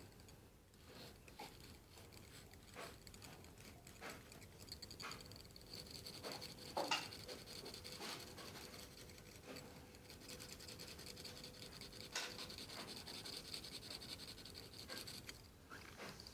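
Faint scratching of a graphite pencil drawing on paper: scattered short strokes and light taps of the lead.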